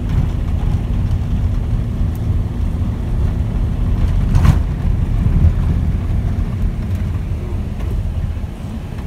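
Road and engine noise heard from a moving vehicle: a steady low rumble with a faint hum, and a brief louder whoosh about four and a half seconds in.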